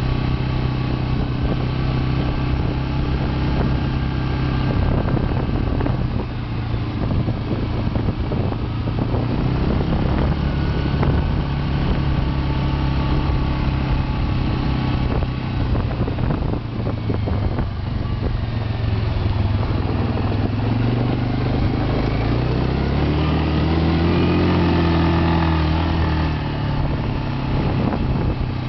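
Suzuki KingQuad ATV engine running at a steady pitch under way on a gravel track, with tyre noise and scattered knocks and rattles over the bumps. About three-quarters of the way through, the engine revs up and falls back again.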